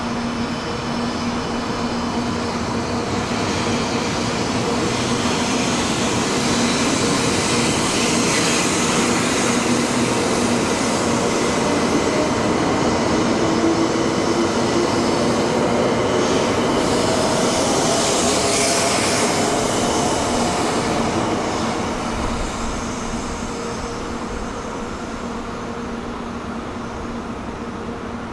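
A JR West 700 series Rail Star shinkansen pulls out past the platform, accelerating. The traction motors give a whine that rises in pitch over the rushing of the cars going by. The sound swells to its loudest in the middle and eases off near the end as the last car clears.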